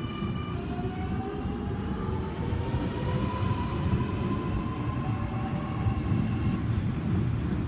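Sydney Trains M-set (Millennium) electric train pulling away. Its motor whine rises steadily in pitch for about six seconds as it accelerates, over a continuous rumble of wheels on the track.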